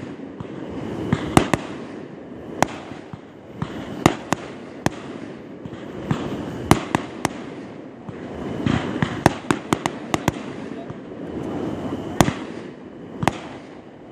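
Aerial fireworks shells bursting: a string of sharp bangs at uneven intervals, with a quick cluster of them about two-thirds of the way in.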